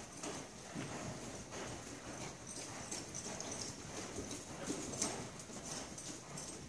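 Hoofbeats of a sorrel colt cantering on deep sand footing, a continuous run of repeated thuds.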